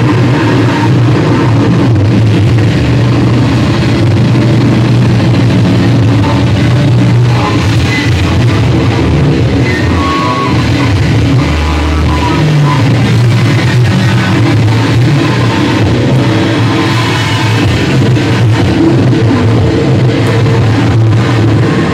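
Live rock music played loud: electric guitars through amplifiers.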